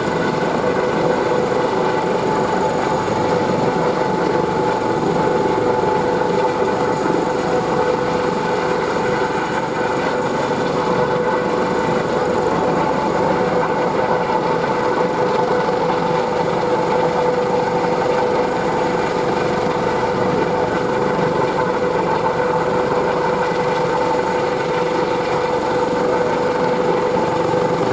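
Fire-department helicopter hovering, a steady turbine whine and rotor noise that holds an even level and pitch throughout.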